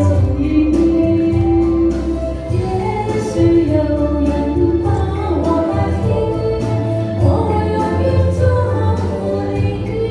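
A singer performs a slow pop ballad over a musical accompaniment, holding long notes over a steady low bass.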